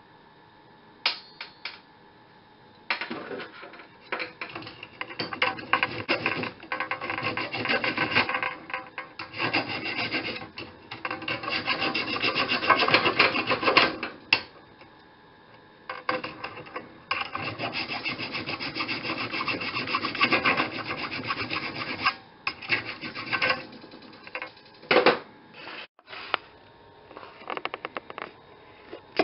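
Hand file scraping back and forth over the silver-brazed joint of a steel band saw blade, taking the excess braze down flush. Two long runs of quick strokes with a short pause between, then a few last strokes.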